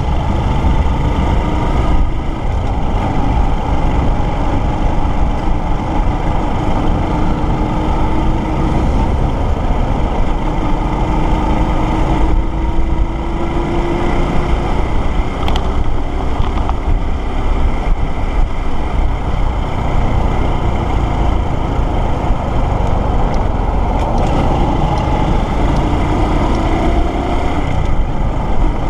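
Motorcycle engine running on the move, its pitch climbing slowly in long stretches and dropping back a few times, over steady wind and road noise.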